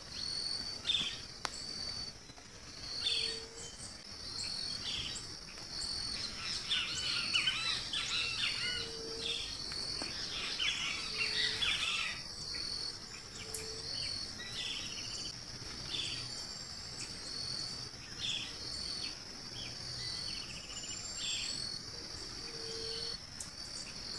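Outdoor nature ambience: a steady high-pitched insect chorus with short chirps repeating every second or two, birds singing busily about halfway through, and a low short call sounding a few times.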